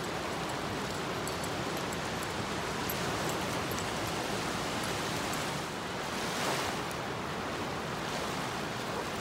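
Small ocean waves washing up on a sandy beach: a steady hiss of surf that swells briefly about six and a half seconds in.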